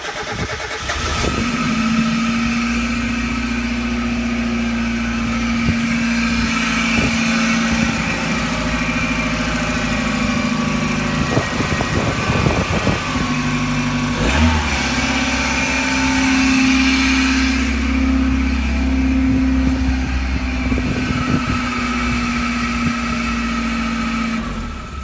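Mazda MX-5's four-cylinder engine running with a whirring, grinding noise and a steady pitched hum. About halfway through a deeper hum joins in, and the sound cuts off near the end.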